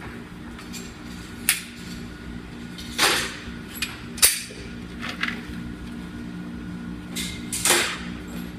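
Pistol shots echoing in an indoor shooting range: four sharp reports, about a second and a half in, around three and four seconds in, and near the end, with a few fainter clicks between them. A steady low hum runs underneath.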